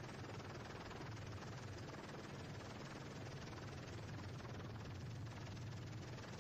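Helicopter engine and rotor noise heard from inside the cabin: a steady low hum over an even rush.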